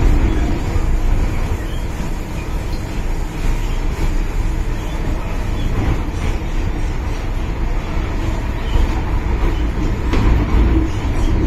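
MTR Tsuen Wan Line M-Train running at speed, heard from inside the passenger car: a steady low rumble of wheels on rail with running noise.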